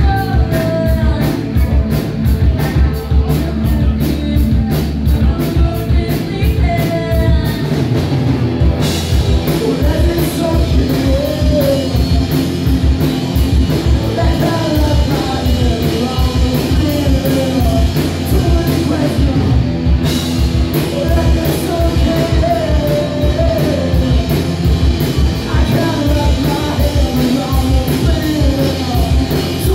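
A rock band playing live: electric guitars, bass guitar and drum kit, with lead vocals sung over a steady beat. The cymbals fill out about nine seconds in and drop out briefly around twenty seconds.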